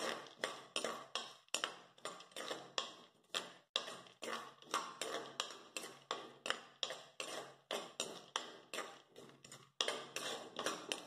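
A metal spoon stirring almonds, cashews and raisins frying in a clay pot, scraping and tapping the pot's bottom in faint, even strokes about three times a second.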